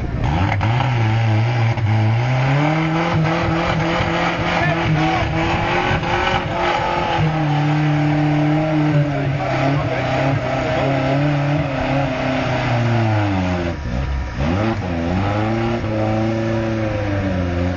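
Suzuki SJ 4x4's engine revving hard under load while the vehicle is stuck. The revs hold high and waver, drop sharply about fourteen seconds in, then pick up again.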